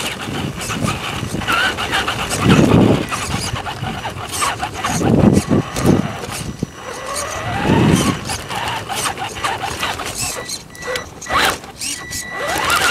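Traxxas Slash 2WD electric RC truck driving hard, heard from its own onboard camera: a motor whine that rises in pitch as it speeds up, over constant clattering and rattling from the wheels and body on brick paving, with several low rumbling surges.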